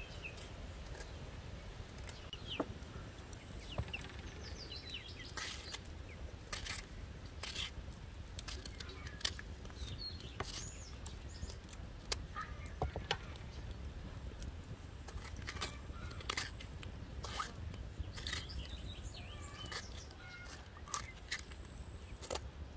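Peaches being cut by hand with a small knife: irregular clicks and taps as the blade works and slices drop onto a metal tray. Birds chirp now and then.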